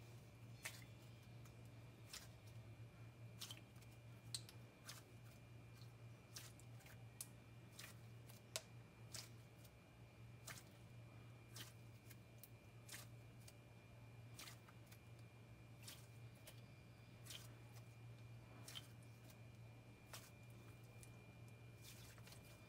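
Faint, irregular clicks and pops of a thick, glossy, clicky slime being squeezed and pressed by hand, about one every second or so, over a low steady hum.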